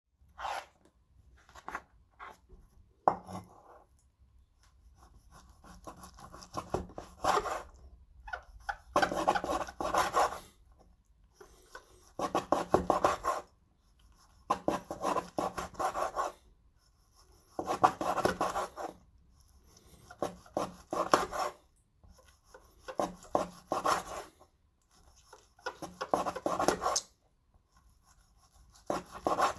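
Knife slicing through beef tendon on a chopping board: about eight bouts of back-and-forth sawing strokes, each lasting one to two seconds, with short pauses between them. A few single light taps come in the first three seconds.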